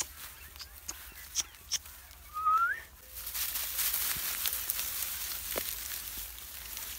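Dry straw and cane leaves rustling and crackling under a litter of puppies scrambling through them, with a few snaps at first and one short rising squeak. The rustling starts about three seconds in and continues.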